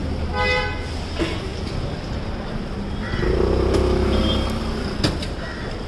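Road traffic with a steady low engine rumble; a vehicle's engine grows louder for about a second and a half from around three seconds in. A brief high tone sounds near the start and a sharp click about five seconds in.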